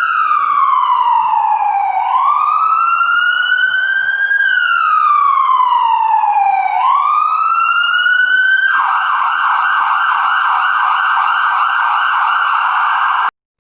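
Ambulance siren wailing, its pitch slowly rising and falling twice, then switching about nine seconds in to a fast warbling yelp. It cuts off suddenly near the end.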